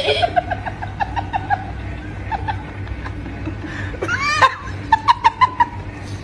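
Person laughing in quick, rhythmic bursts, then a high rising and falling cry about four seconds in and a run of rapid, higher-pitched laughs just after.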